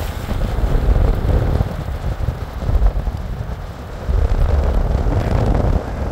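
Car driving along a paved road: a low, uneven rumble of road and wind noise buffeting the microphone.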